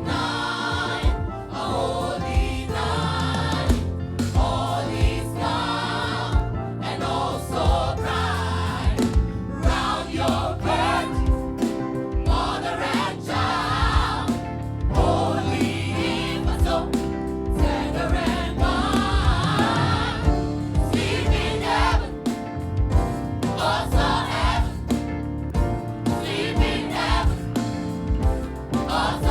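Gospel choir singing with live band accompaniment and a steady drum beat.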